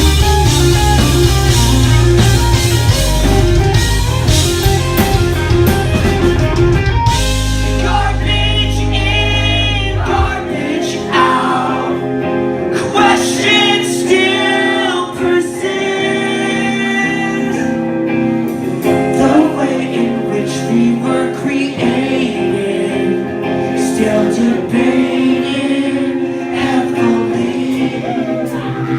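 Rock band playing live: guitars over a heavy bass line, which drops out about ten seconds in, leaving the guitars and a sung vocal line.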